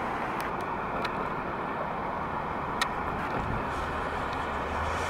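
Steady street traffic noise as a car drives past, with a low hum underneath and a few short sharp clicks, the loudest about three seconds in.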